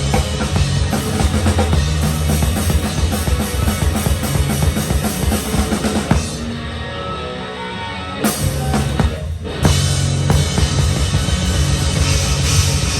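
A live rock band plays, with the drum kit to the fore. About six seconds in, the band drops to a quieter break for a few seconds, then the full band comes back in.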